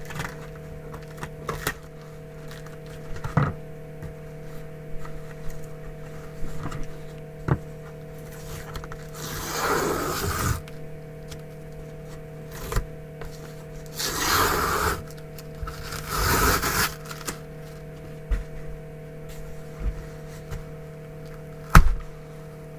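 A cardboard shipping box being opened with scissors. Scattered clicks and knocks from handling, then three scraping, tearing strokes about ten, fourteen and sixteen seconds in as the packing tape is slit and the box pulled open, and a sharp knock near the end. A steady hum runs underneath.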